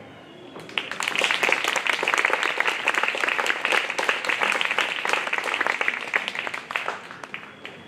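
Audience applauding: clapping starts about a second in, holds steady, then thins out near the end.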